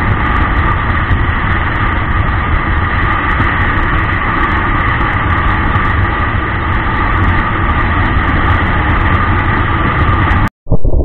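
Motorcycle riding at highway speed, heard through a camera mounted on the bike: steady engine rumble mixed with heavy wind and road noise. Near the end the sound drops out for a moment and comes back duller and more muffled.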